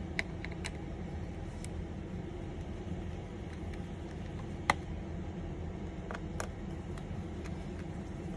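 Scattered small clicks and taps of a Phillips screwdriver working screws out of a laptop's underside, the sharpest about halfway through, over a steady low hum.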